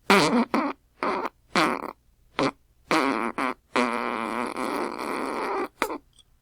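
Fart sound effects: a run of about seven short farts with brief gaps between them, then one long fart lasting about two seconds, and a final short one.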